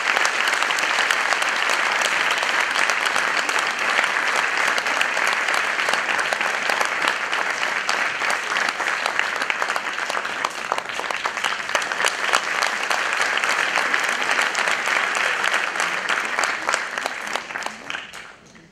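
Audience applauding, a dense steady clapping that dies away quickly near the end.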